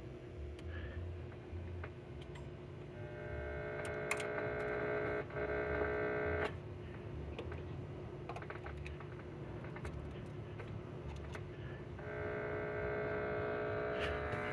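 RCA 813K tube radio switched on but receiving no station: its speaker gives only a hum and a buzzing tone, which comes in twice and cuts off sharply between, with scattered light clicks.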